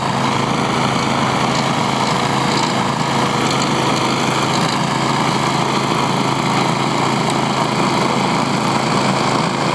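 Toro Power Max two-stage snow blower's small gasoline engine running steadily under load while the machine throws a continuous stream of snow from its chute.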